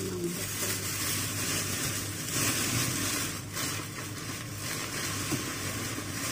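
Plastic bags rustling irregularly as leafy greens are handled and pulled out of a red plastic carrier bag, over a low steady hum.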